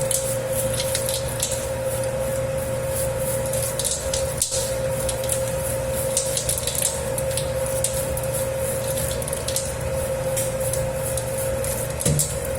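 Dough kneading machine working a 10 kg batch of pizza dough: a steady motor hum with a constant whine, and the dough slapping and squishing in the bowl in irregular wet smacks.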